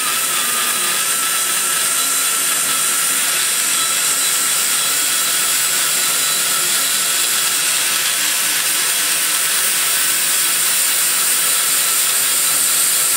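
Die grinder with a long-shank cutter bit running steadily, cutting metal inside a big-block Chevy cylinder head's exhaust port to level out a hump in the port wall.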